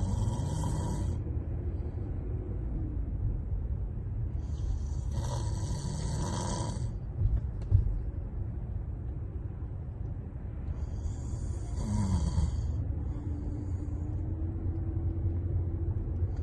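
A sleeping person snoring, one rasping, hissy snore about every six seconds over a steady low rumble. A couple of brief knocks come just after the second snore.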